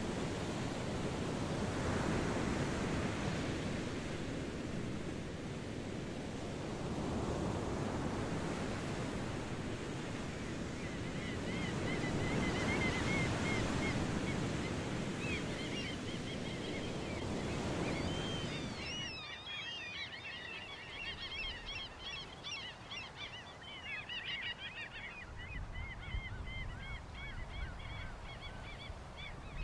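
Wind and choppy waves washing onto a shore, rising and falling in swells, with birds starting to call about a third of the way in. About two-thirds of the way through the surf noise cuts out, leaving many short bird chirps and calls over a quiet background.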